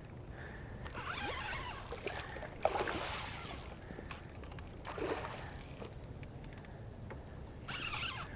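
Spinning reel being cranked while a hooked wiper (hybrid striped bass) is reeled in, with about four short bursts of water splashing as the fish fights.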